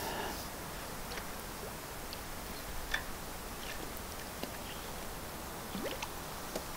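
Quiet steady background with a handful of faint, scattered light clicks, the clearest about three seconds in.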